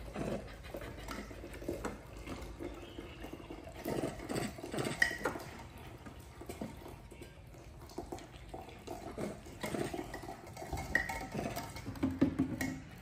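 Scattered light clinks and knocks of dishes and utensils being handled, irregular and unhurried, as food is prepared.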